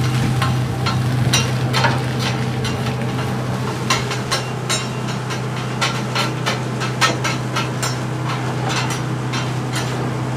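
Metal spatulas clacking and scraping on a flat-top griddle as fried rice is chopped and turned, in quick irregular taps, over a steady low hum.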